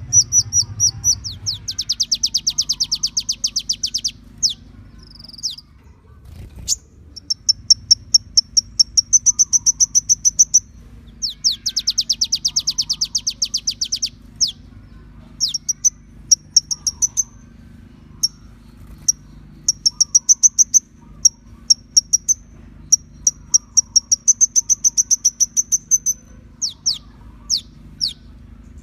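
Kolibri ninja (a sunbird) singing: phrases of fast, high trills and runs of quick chirping notes, broken by short pauses, over a faint steady low hum.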